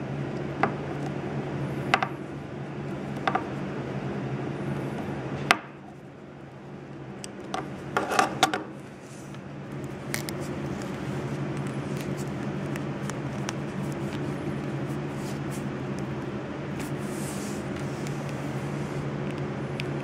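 Utility knife blade clicking and scraping against the plastic jacket of RG-6 coax cable as it is scored, with a few sharp clicks in the first six seconds. About eight seconds in comes a quick cluster of small clicks and rubbing as the cut jacket is worked with the fingers, over a steady low hum.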